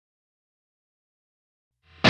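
Near silence, with a faint low hum and hiss fading in just before the end.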